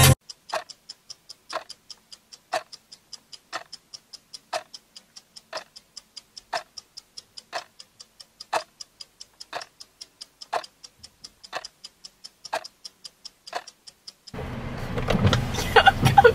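Stopwatch-style ticking clock sound effect, a stronger tick once a second with lighter ticks between, about five ticks a second. Near the end it gives way to car-cabin rumble and voices.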